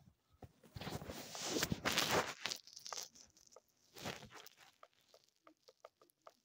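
Plush toy fur rubbing and rustling against the microphone as the toy is handled and searched for its mode switch, followed by a run of small sharp clicks near the end.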